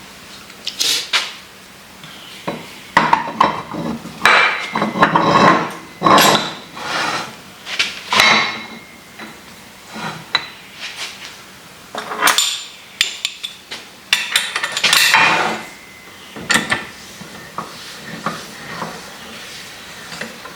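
Metal parts of a milling machine vise clinking, knocking and scraping against each other as they are handled and fitted together during reassembly, some knocks leaving a brief metallic ring.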